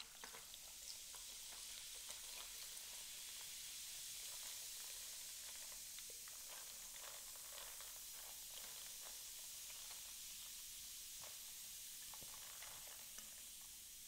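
Carbonated Fanta soda poured from two bottles onto a glass bowl of ice, fizzing with a steady hiss and many small crackles.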